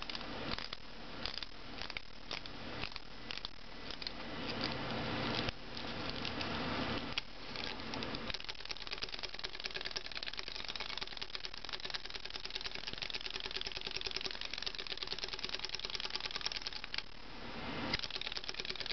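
Clockwork of a 1972 wind-up hopping Woodstock toy: first it is wound by hand with irregular clicks. From about eight seconds in it is let go and its spring motor runs with a fast, even clicking as it hops across the tabletop, stopping a little before the end.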